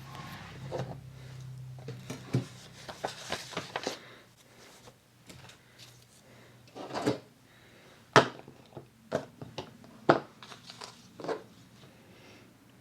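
Paper being handled and rustled on a work table, followed by scattered sharp taps and clicks of paper and craft tools being set down, the loudest about eight and ten seconds in.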